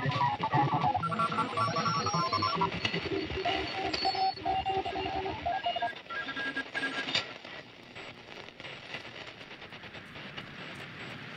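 A run of electronic beeping tones that jump quickly from pitch to pitch, like telephone tones, stopping about six or seven seconds in. After them comes a quieter, even rustling hiss with faint scattered clicks.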